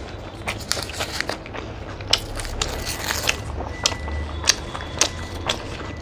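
People biting and chewing egg rolls: irregular sharp clicks and crackles of eating sounds, with the paper wrappers rustling as the rolls are handled.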